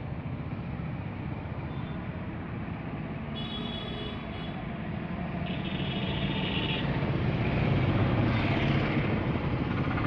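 Road traffic going by: a steady rumble of vehicles that slowly grows louder toward the end, with two brief high-pitched beeps a few seconds in.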